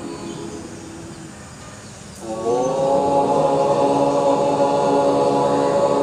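Conch shell blown for the morning aarti (Mangal Arati). About two seconds in, a long tone scoops up in pitch and then holds steady.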